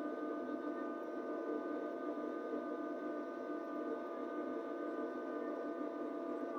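Kubota LX2610 compact tractor's three-cylinder diesel engine running steadily while driving the front-mounted LX2963 snowblower through heavy wet snow, with a steady high whine over the engine.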